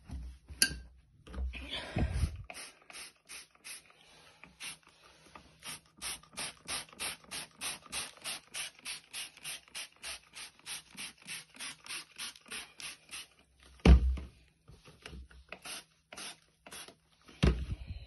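Vanish Gold stain remover being worked into a dirty fabric cushion in quick, evenly spaced rasping strokes, about three a second for some ten seconds. Rustling handling of the cushion comes before, and a dull thump about fourteen seconds in.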